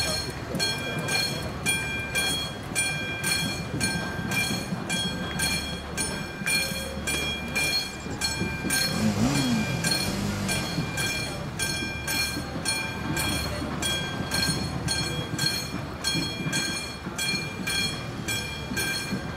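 Level-crossing warning bell ringing in a fast, even beat, over the low rumble of a TGV trainset rolling across the crossing.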